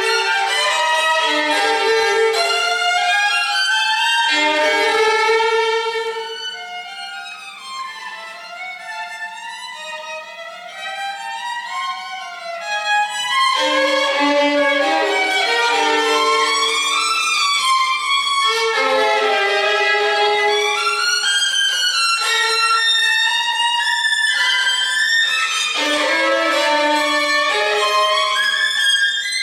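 Violin music: a melody of held and moving notes, softer for several seconds in the middle before returning to full level.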